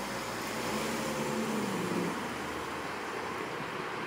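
Honda Civic sedan pulling away from the curb: engine and tyre noise with a low hum that is strongest between about one and two seconds in, over steady outdoor hiss.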